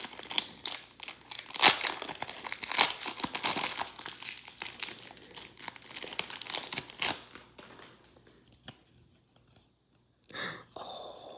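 Foil booster-pack wrapper crinkling and tearing as it is opened by hand, a dense crackle for about seven seconds that then dies away, with one short rustle near the end.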